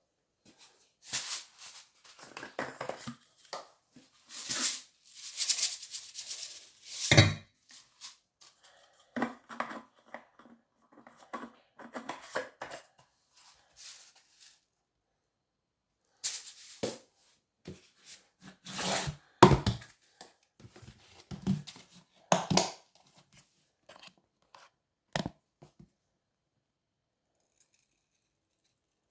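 Intermittent handling noises: rustling and scraping with several sharp knocks, the loudest about 7 and 19 seconds in, stopping about 26 seconds in.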